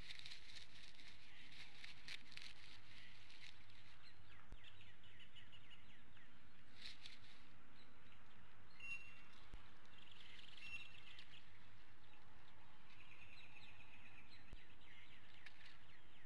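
Outdoor ambience over a steady hiss, with faint high bird chirps and short trills coming and going: a cluster of quick chirps at first, then short single notes and trills in the second half.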